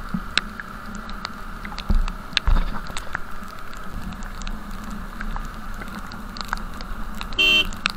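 Motorcycle riding in rain, with raindrops tapping on the camera as scattered clicks over the steady engine and road hum. Two heavy thumps come about two seconds in, and a short beep sounds near the end.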